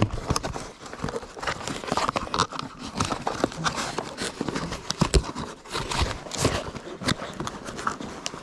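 A toy's cardboard box and packaging being handled: irregular rustling, crinkling and small clicks as the contents are taken out and pushed back in, with the box's tab catching.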